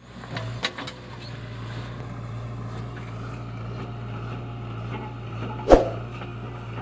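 Heavy diesel engine running steadily, with a small click early on and one loud knock about five and a half seconds in.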